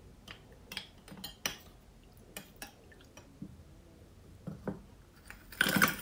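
A spoon clinks and scattered knocks come from dishes being handled. Near the end, frozen, sugar-coated strawberries tumble from a bowl into a stainless-steel saucepan with a dense, loud clatter.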